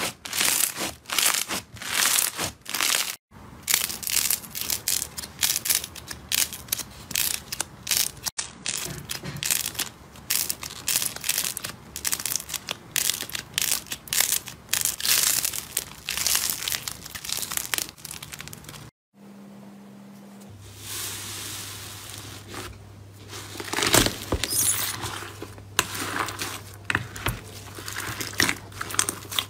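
Hands squeezing, stretching and pressing slime in a run of separate clips: dense crackling and popping from crunchy bead-filled slime, later wetter squelches and pops as glossy slime is kneaded in a bowl. A faint steady hum lies under the later clips.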